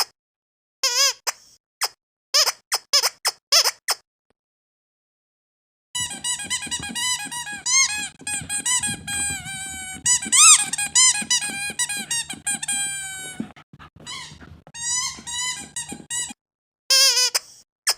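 Squeaky dog toy squeezed over and over: a few short separate squeaks, a pause of about two seconds, then about ten seconds of fast, almost unbroken squeaking over a low hum, and a few more squeaks near the end.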